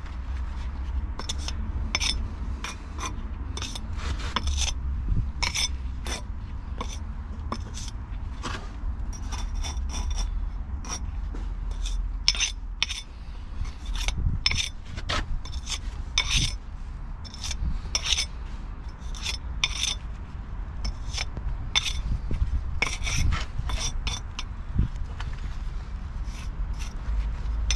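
Metal brick jointer run along fresh mortar joints in brickwork, a long irregular series of short scraping strokes, several a second at times, over a steady low rumble.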